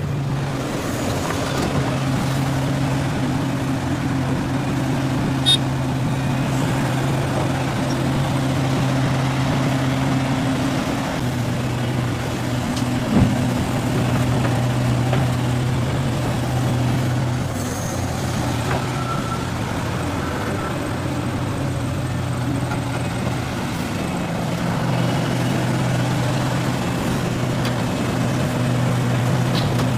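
Heavy diesel engine of an excavator or dump truck running steadily, its pitch shifting slightly up and down a few times. A sharp click about five seconds in and a knock about thirteen seconds in.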